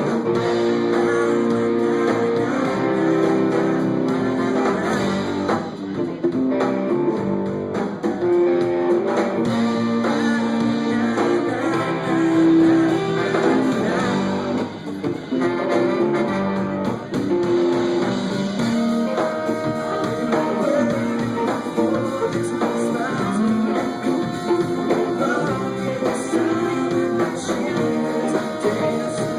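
A rock band playing live, with guitar to the fore.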